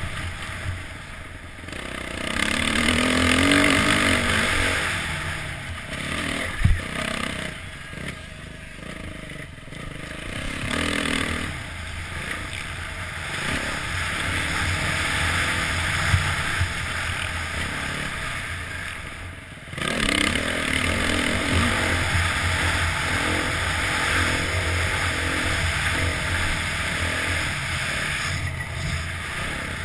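Motocross bike engine revving up and falling back as it is ridden, heard from the rider's helmet. There is a sharp knock about seven seconds in, and the engine drops off briefly just before twenty seconds.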